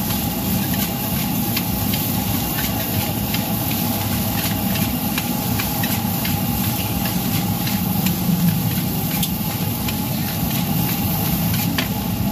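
Metal spatula scraping and clinking against a large steel wok as white rice is stir-fried, in short irregular clicks over a steady low rumble.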